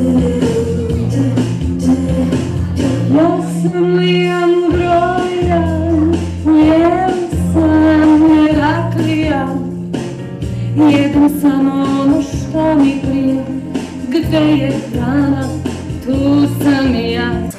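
Song from a stage musical: a woman singing long, wavering notes over instrumental accompaniment with a steady bass line.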